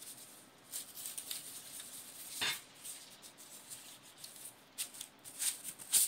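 Rustling and crinkling of a white packaging wrap and cardboard box parts being handled, in a series of short separate rustles. The loudest come about halfway through and near the end.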